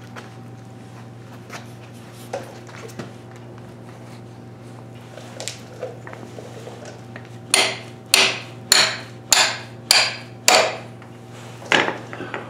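Light handling clicks, then about seven sharp hammer blows on a metal rod set into a grease-packed pilot bearing bore at the back of the crankshaft, a little over half a second apart with a short pause before the last. The pounding pressurises the grease to push the needle bearing out hydraulically.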